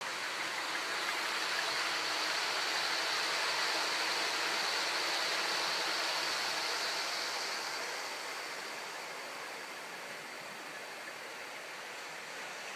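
Model train running along the layout's track: a steady whirring rumble of motor and wheels with a faint high whine, loudest as the coaches pass close in the first half, then fading as the train runs away.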